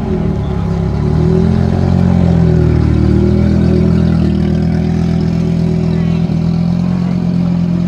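Tuned 700 hp Audi quattro's turbocharged five-cylinder engine running steadily at low revs as the car rolls slowly along.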